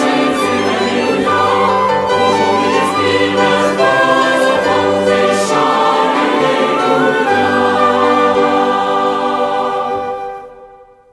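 Choral music, a choir singing over instrumental backing, fading out near the end.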